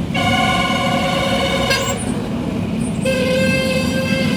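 Vehicle horns sounding in two long steady blasts, the first about two seconds long and the second starting about a second after it, over the continuous low rumble of running engines.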